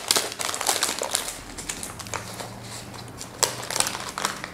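Paper food wrapping crinkling and rustling in scattered crackles as a wrap is handled, one sharper crackle near the end, over a faint steady low hum.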